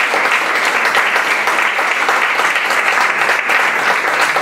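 Audience applauding: dense, steady clapping with no let-up.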